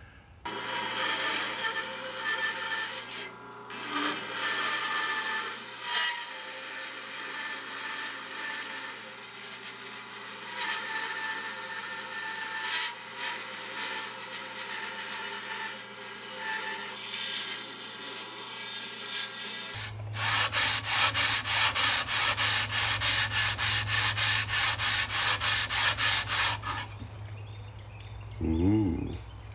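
A bandsaw running and cutting the profile of a wooden guitar neck blank for about twenty seconds. Then a sanding leveling beam is rubbed back and forth along the neck in quick strokes, about three a second, which stop a few seconds before the end.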